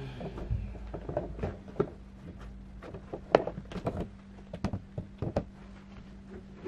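Plastic pet-door flap in a cardboard box knocking and clicking as a cat is pushed through it and the flap is then pushed by hand: a scatter of clicks and thumps, the loudest about three and a half seconds in.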